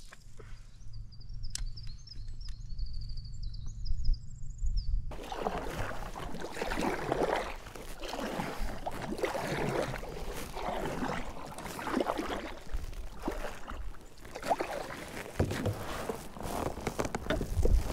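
Water splashing and sloshing around a kayak from paddle strokes, coming irregularly about once a second. This follows an abrupt change about five seconds in; before it there is only a low steady rumble with a few high chirps.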